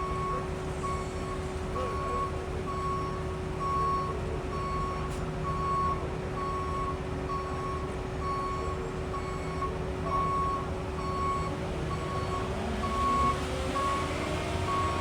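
Concrete mixer truck reversing: its backup alarm beeps steadily about once a second over the low running of the diesel engine.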